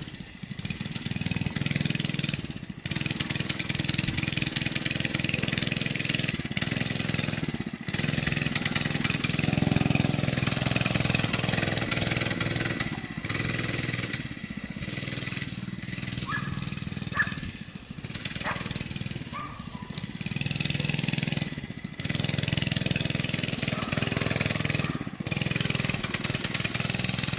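Small engine of a child's mini bike running as it is ridden, its sound rising and falling with several brief dips.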